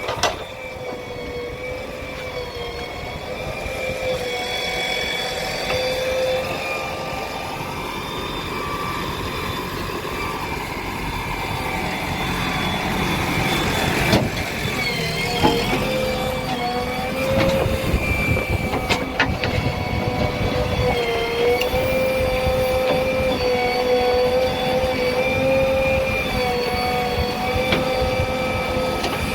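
Diesel engine of heavy earthmoving machinery running under load, with a steady whine that wavers in pitch as the engine speed shifts. A few sharp knocks come around the middle.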